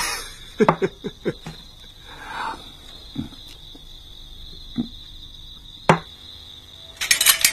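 Steady high chirring of crickets in the night background, with a few short soft clicks and knocks scattered through. Near the end comes a quick cluster of sharp hits.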